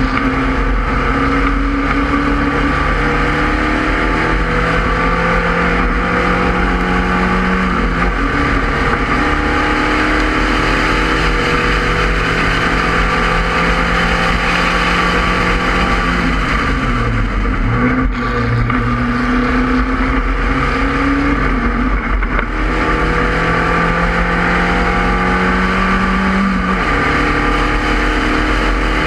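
Spec Racer Ford Gen 2 race car's engine under power, heard onboard. Its pitch climbs steadily and falls back sharply at upshifts about 8 and 27 seconds in, with a dip and recovery around 17 seconds. Heavy steady wind and road noise sit over it.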